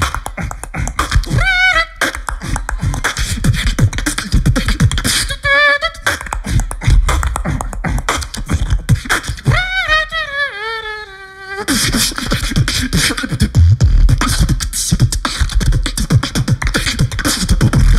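Beatboxing into a handheld microphone: fast kick, snare and hi-hat sounds made with the mouth, broken three times by a wavering pitched vocal line, the longest one near the middle sliding down in pitch.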